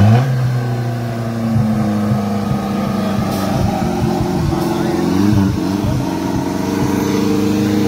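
Petrol engine of a modified Maruti Gypsy 4x4 running hard at fairly steady high revs under load on steep off-road ground, the pitch wavering a little midway.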